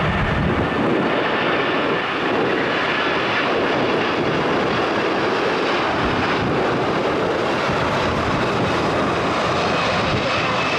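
Jet airliner engines, a loud steady rush of noise with a faint high whine showing through toward the end.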